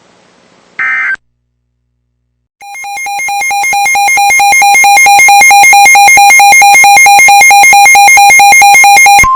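A NOAA weather radio's built-in alert alarm sounds: a loud, rapidly pulsing electronic tone that swells up over its first second and a half, then holds steady for several seconds, signalling an incoming warning. A brief electronic data chirp is heard about a second in, before the alarm.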